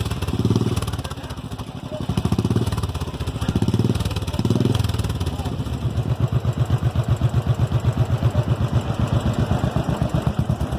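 Royal Enfield Thunderbird 500's single-cylinder engine through an aftermarket loud exhaust, revved in several short throttle blips, then settling into a steady thumping idle about halfway through.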